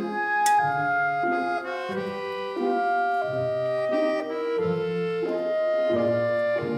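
Instrumental background music: a melody of short held notes over a bass line, with a brief sharp click about half a second in.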